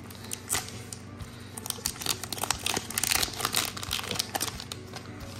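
A trading-card booster pack's shiny foil wrapper being torn open and crinkled by hand: a run of sharp crackles and crinkles, busiest in the middle.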